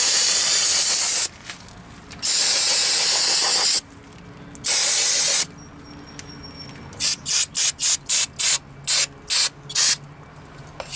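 Aerosol can of brake cleaner spraying onto a rear drum-in-hat parking brake shoe, first in long hissing blasts and then in a quick string of short squirts, about two a second, through the last few seconds.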